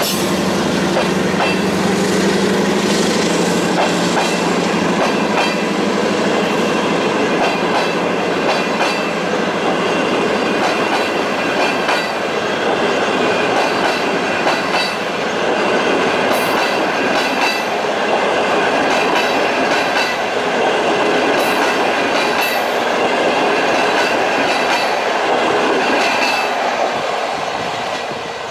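Passenger coaches of a long-distance train rolling past close by, wheels clacking over the rail joints with a steady rumble. The diesel locomotive's low hum fades out in the first few seconds, and the sound eases off near the end as the last coach goes by.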